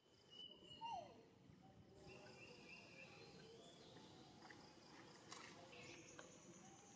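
Faint outdoor ambience: thin, steady high tones and short chirps, with one short falling squeak about a second in.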